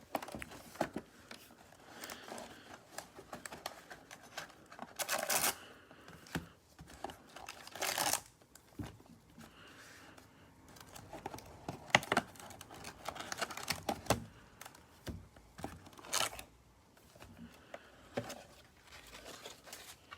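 A sealed trading-card hobby box being opened by hand: cardboard and wrapping tearing and crinkling, with handling clicks and several louder rustling bursts.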